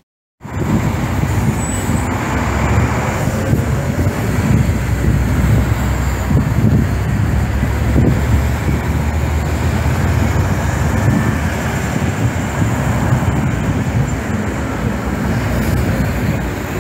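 Steady city road traffic noise: a continuous low engine rumble of cars and heavy vehicles on the street, without sirens.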